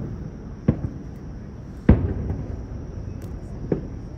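Aerial fireworks shells bursting: about four separate booms, the loudest about two seconds in.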